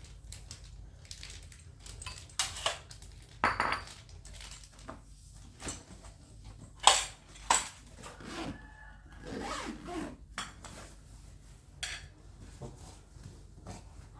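Unboxing handling noises: irregular clicks, light knocks and scraping of packaging and a hard case or box being opened, with two sharp knocks about seven seconds in.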